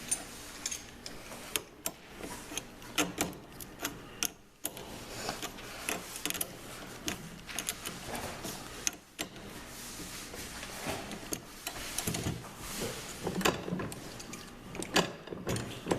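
Irregular small clicks, taps and scrapes of a nut and bolt being tightened by hand with tools on the steering bar of a plastic ride-on toy truck.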